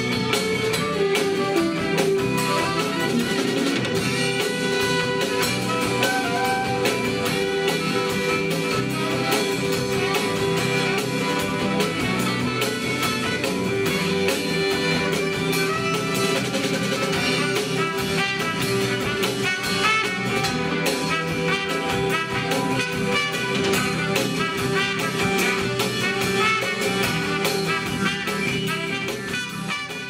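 Band music with saxophone, trumpet and drum kit playing a jazzy tune, beginning to fade out near the end.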